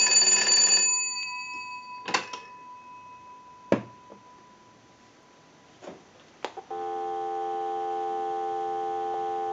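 The twin brass bells of a Stromberg Carlson wooden wall crank telephone finish a ring driven by the line analyzer's ringing signal and fade out over the first second or two. A few separate clicks follow as the receiver is handled, then from about seven seconds in a steady dial tone sounds.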